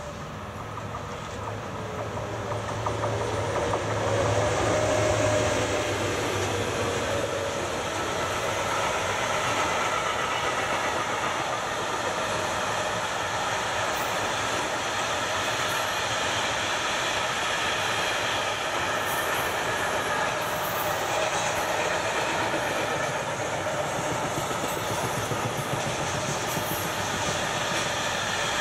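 Freight train hauled by an Sr1 electric locomotive passing close by. The rolling rumble swells to its loudest about five seconds in, then holds steady as the wagons roll past, with wheels clattering over the rails.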